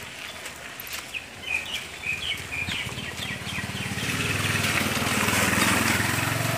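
A bird chirps in a quick run of short calls. Then, from about three seconds in, a motor vehicle's engine grows steadily louder as it approaches.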